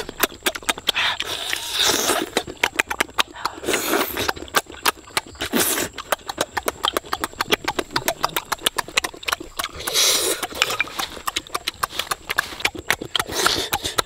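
A person eating noisily: rapid wet mouth-smacking and chewing clicks, broken every few seconds by a longer slurp, as cooked snails are eaten.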